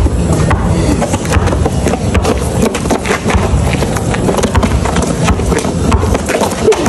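Basketball bouncing and feet scuffing on a dirt-and-gravel court: sharp knocks at irregular intervals over a steady low rumble.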